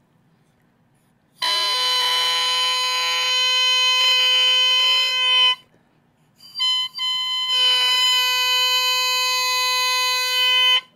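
Cane oboe reed crowed on its own: three blown crows, one of about four seconds, a short one, then one of about three seconds, each a steady tone rich in overtones. The tip has just been clipped to bring the crow's pitch up from a sharp B toward C.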